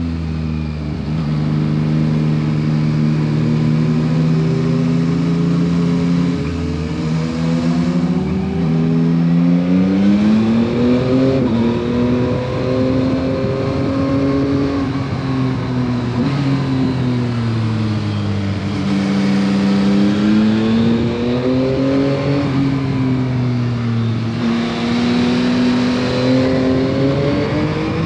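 2021 Yamaha MT-09 SP's inline three-cylinder engine through its stock exhaust, pulling and easing off on the road: the engine note climbs and falls several times, with sudden drops in pitch at gear changes.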